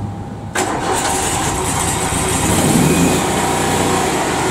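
Exmark Lazer Z zero-turn mower's engine running, with a sudden jump in level about half a second in. It then speeds up as the throttle is opened to about half throttle, ready for burnishing a new PTO clutch.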